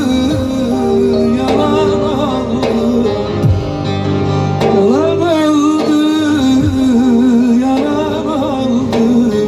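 A man singing a bozlak with long, wavering held notes and ornamented slides, accompanied by a bağlama (long-necked Turkish saz).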